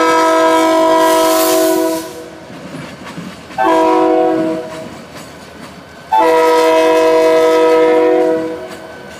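Diesel locomotive air horn on NS SD40-2 3537 sounding a multi-note chord in a long blast, a short blast, then another long blast: the closing part of the long-long-short-long grade-crossing signal. Between the blasts the passing train's wheels and engines run underneath.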